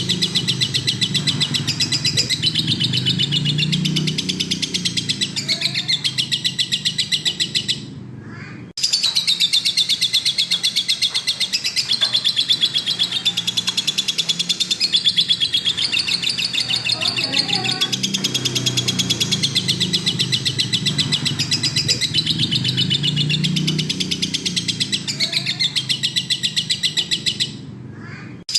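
Lovebird singing a long, fast, unbroken chattering trill of rapid high chirps, with a brief pause about 8 seconds in and another near the end.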